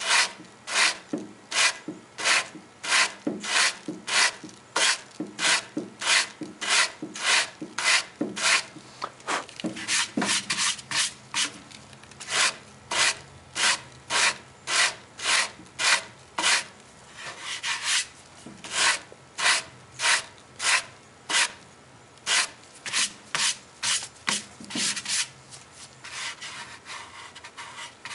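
Hand sanding with a wood block wrapped in 150-grit sandpaper on a cello's curved wooden body: steady back-and-forth rasping strokes, about two a second, over a patch of dried wood filler, smoothing the repair flush with the surface. The strokes turn lighter and less regular near the end.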